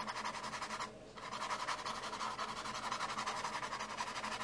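Small paintbrush scrubbing oil paint on canvas in rapid short strokes, a soft steady scratching with a brief pause about a second in, as petal edges are blended into the background.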